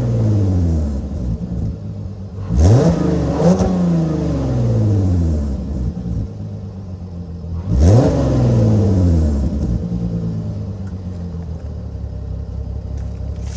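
VW Atlas 3.6 VR6 engine with a resonator-delete exhaust, free-revved three times: each blip climbs sharply and falls slowly back to idle. It then idles steadily.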